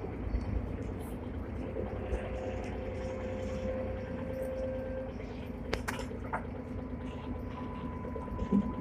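Steady low rumble inside the driver's end of a Hong Kong double-decker tram standing still, with faint steady tones and a sharp click about six seconds in.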